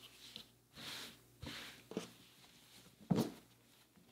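Hands handling and folding small fabric trousers on a tabletop: soft cloth rustling and hands brushing over fabric and table, with a soft thump just after three seconds in.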